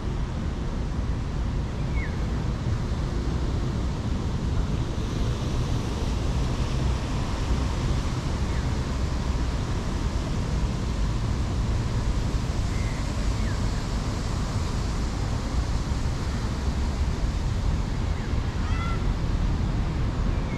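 Steady hiss of falling rain over a low rumble of road and bus traffic, with a few faint, short high chirps.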